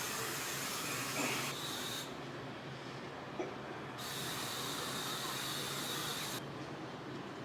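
Steady rushing noise without a clear pitch, whose character changes abruptly several times.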